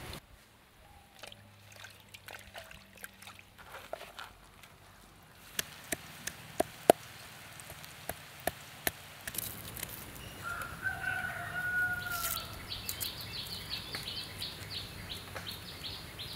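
Pestle pounding garlic cloves in a stone mortar: a series of sharp knocks about half a second apart. Then, about ten seconds in, a rooster crows once. A fast, high ticking of about four or five a second follows.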